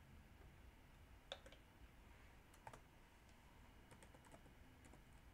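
A computer keyboard's keys clicking faintly and irregularly, a handful of scattered keystrokes against near silence, with a small cluster of clicks about four seconds in.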